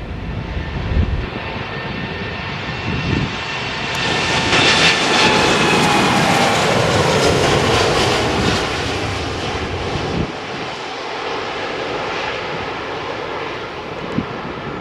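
Boeing 787-8 Dreamliner's twin jet engines at takeoff power as the airliner passes: the roar swells about four seconds in, peaks with a whine that slides downward in pitch, then falls away after about ten seconds.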